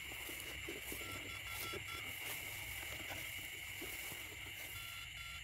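Night chorus of frogs and insects after rain: a steady high-pitched trill, with a short run of evenly spaced call notes about a second in and again near the end. Faint rustling of footsteps through wet grass underneath.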